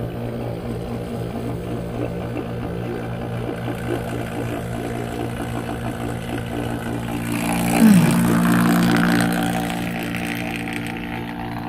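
HVAC vacuum pump running steadily with a low motor hum while it evacuates an air-conditioning line set. About eight seconds in, a louder swell with a falling pitch rises over the hum for two or three seconds, then fades.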